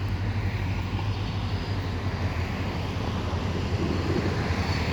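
Diesel freight locomotive's engine running with a steady low rumble as the train pulls out, growing slightly louder near the end.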